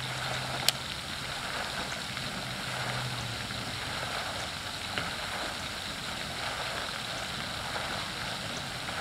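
Steady rushing hiss of the pond's spray fountain. A low hum fades out in the first few seconds, and there is a single sharp click about 0.7 seconds in.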